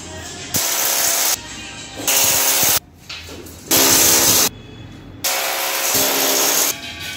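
Corded electric drill boring into a plastered masonry wall in four short bursts, each starting and stopping sharply, as the metal angle track is fixed along the wall.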